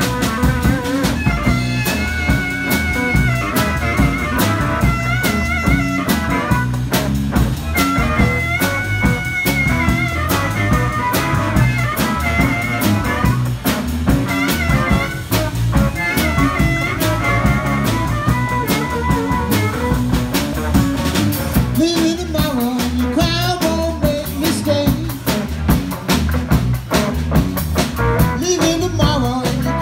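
Blues band playing live, with electric guitar, electric bass and drum kit keeping a steady beat. A harmonica solo played cupped against a handheld microphone carries long, wavering held notes through about the first two-thirds.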